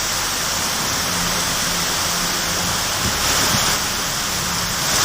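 Heavy rain pouring in a strong wind: a steady, dense hiss.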